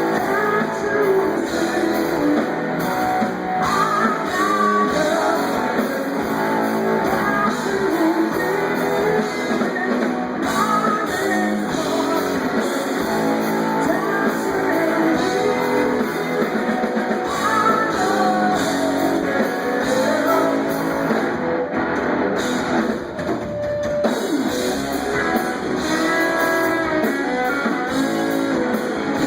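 Live rock band playing: electric guitar, bass and drum kit with a singing voice. It is heard through a phone-type recording from the crowd, loud and muffled, with the high end dull and washed out.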